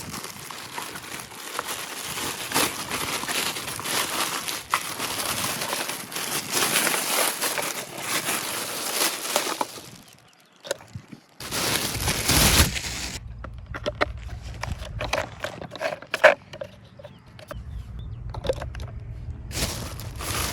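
Crinkling and rustling of packaging being handled, with many small irregular clicks and taps. It pauses about halfway through, and a low steady hum sits under the second half.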